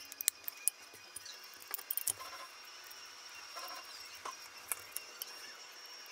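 Small sharp clicks and taps of screws, standoffs and carbon-fibre frame parts being handled and screwed together with a hex driver: a scattered run of light ticks, the sharpest in the first two seconds.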